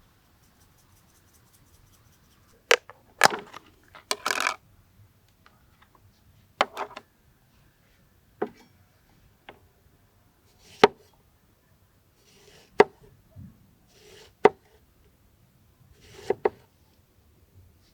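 A series of about ten sharp knocks and cracks, irregularly spaced a second or two apart, some with a brief rustle or scrape around them.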